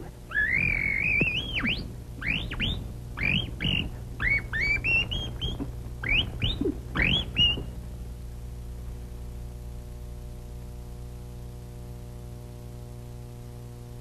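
Canary-like tweeting whistles, a quick string of short rising glides, stop after about seven and a half seconds. A steady low hum then runs on alone.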